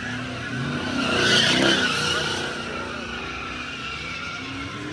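Car tires screeching on pavement over the engine's running, swelling loudest about a second in and then easing.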